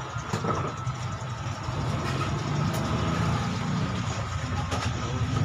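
Steady low engine rumble of a vehicle, growing louder about two seconds in.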